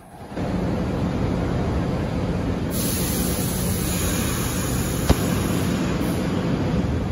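R62 subway train approaching the platform, a steady rumble of wheels on the track. A hiss joins about three seconds in, and there is one sharp click about five seconds in.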